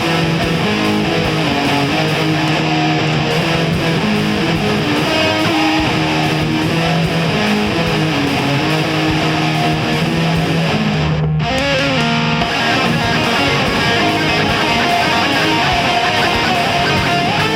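Instrumental passage of a home-recorded nu-metal song, led by electric guitars, with no vocals. The music drops out briefly about eleven seconds in, then comes back.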